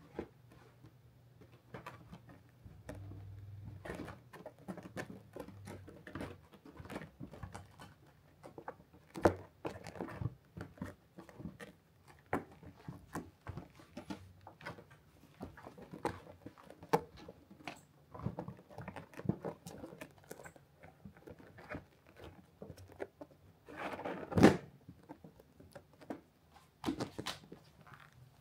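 A cat scrabbling and pattering on a felt cat-cave bed: irregular soft taps, scratches and rustles, with one louder bump late on.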